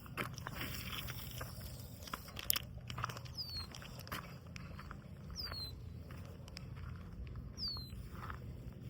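A bird calls three times, each a short falling whistle about two seconds apart. Scattered sharp clicks and a steady low rumble sit under the calls.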